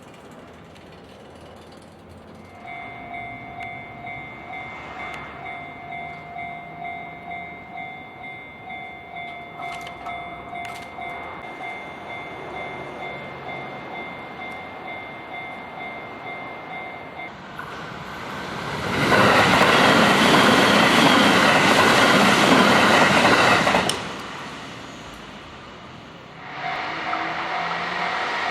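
Japanese level-crossing warning bell clanging in a steady repeating pattern. Then an electric commuter train passes over the crossing, its running noise loud for about five seconds. The crossing bell starts clanging again near the end.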